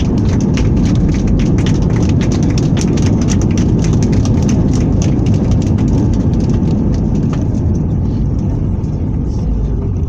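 Airliner cabin noise on the runway just after touchdown: a loud, steady rumble of the engines and rolling landing gear, with rapid rattling and ticking over it. It eases slightly about seven seconds in as the plane slows.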